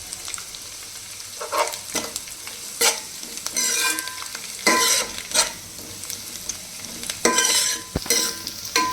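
Cabbage, onion, green chillies and curry leaves sizzling in hot oil in a metal pot while a spoon stirs and scrapes them, an irregular scrape about every second, some with a faint metallic ring.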